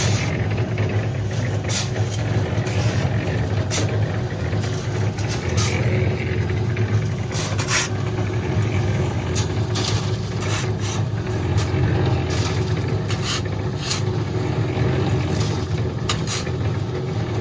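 Cement mixer running steadily with a low hum as it churns a sand, earth and cement mix, with frequent short knocks and scrapes over it.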